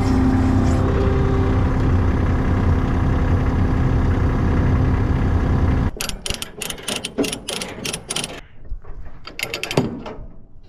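ASV compact track loader's engine running steadily, cutting off suddenly about six seconds in. Then a ratchet chain binder is cranked in quick clicking runs, tightening the tie-down chains that hold the loader on the trailer.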